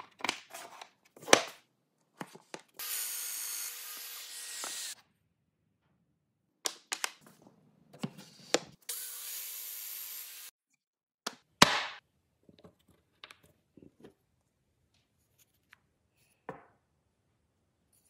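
Festool Domino DF 500 joiner running twice, each plunge cut lasting about two seconds, to mortise narrow boards. Between the cuts come sharp knocks and clicks as the boards and the joiner are set down and handled on the bench.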